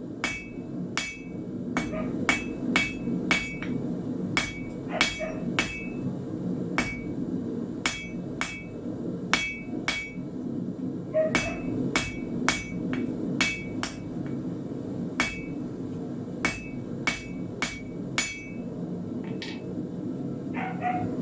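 Blacksmith's hammer forging a square iron bar on the anvil: runs of blows at about one to two a second with short pauses, each blow ringing briefly. A steady low rushing noise runs underneath.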